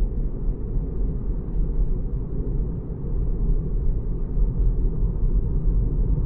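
Steady low road and tyre rumble heard inside the cabin of a Tesla Model 3 electric car while it drives, with no engine note.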